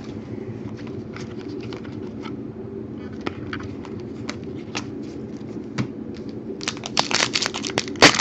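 2014 Panini Prizm World Cup trading cards handled and flipped through by hand: sparse soft ticks of card against card, turning into a run of louder crinkly clicks and snaps about seven seconds in, over a steady low hum.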